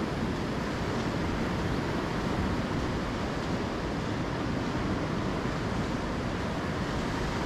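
Steady wash of small surf breaking on a sandy beach, with a low wind rumble on the microphone.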